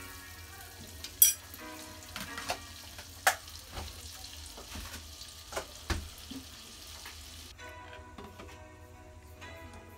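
Butter sizzling in a small saucepan on a gas burner, with several sharp clicks of a utensil knocking against the pan. About three-quarters of the way through, the sizzle cuts off as a milky liquid goes in and is stirred.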